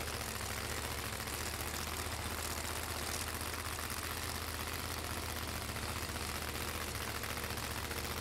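Top Doorslammer drag-racing car engines idling, a steady low rumble with no revving.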